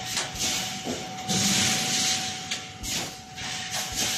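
CNC wire mesh welding machine running: a steady whine under repeated short clunks, with a loud hissing burst lasting most of a second about a second and a half in.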